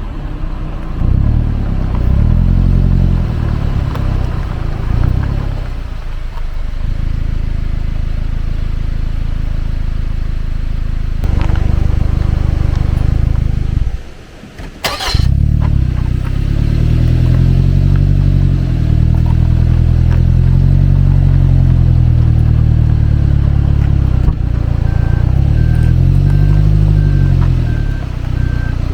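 Suzuki Jimny Sierra JB74's 1.5-litre four-cylinder engine running while driving, its note rising and falling with engine speed. It drops out briefly with a sharp click about halfway through.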